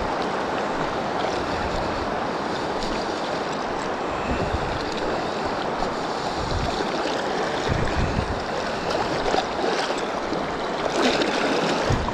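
Steady rush of a fast-flowing river's current around a wading angler, with a few low wind buffets on the microphone.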